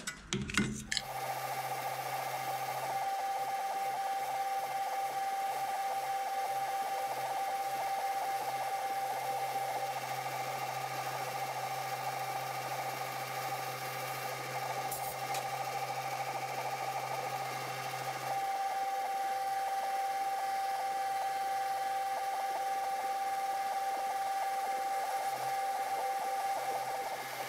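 Metal lathe running with a steady whine about a second in, as a parting tool cuts into the belt groove of a steel pulley.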